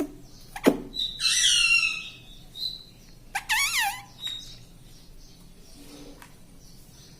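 Pet parrot calling: a couple of sharp clicks, then a falling squawk about a second in, a short chirp, and a warbling call that wobbles up and down a little after three seconds, followed by another short chirp.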